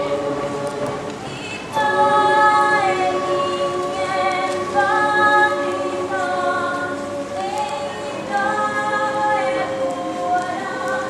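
Mixed choir singing a cappella, holding long chords that shift every second or two, with a fuller, louder entry about two seconds in.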